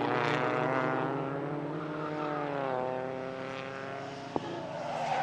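Pre-war racing car engine running at speed, a steady engine note whose pitch sags about two seconds in and then climbs again, fading a little and growing louder again near the end. A single short click about four seconds in.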